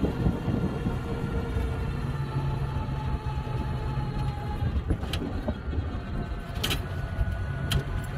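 Small electric car driving on a paved road, heard from inside: steady tyre and road rumble with wind and a faint whine. Three short sharp clicks or rattles come in the second half.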